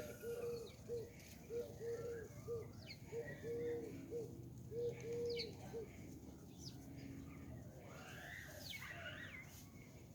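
Birds at a feeder: a run of short, low cooing notes like a dove's through the first six seconds, with scattered thin high chirps and a busier patch of twittering calls near the end.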